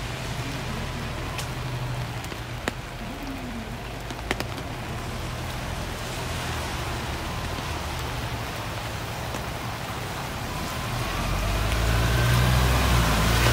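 Steady rain falling, with a couple of sharp clicks early on. Near the end a car approaches, its sound growing louder with a rising whine.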